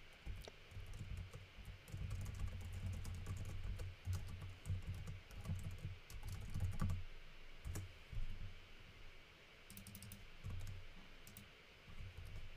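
Typing on a computer keyboard: uneven runs of keystrokes, each a click with a dull thud, thinning out toward the end.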